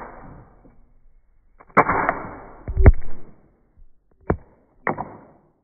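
Sharp plastic snaps from a toy ship's spring-loaded projectile launchers. There are four over about three seconds, the second the loudest, and most trail off in a short rattle.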